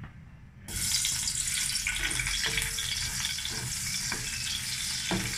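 Chopped onion tipped into hot cooking oil in a metal wok, starting to sizzle loudly about a second in and continuing steadily. A utensil stirs it around the pan with a few light knocks and scrapes.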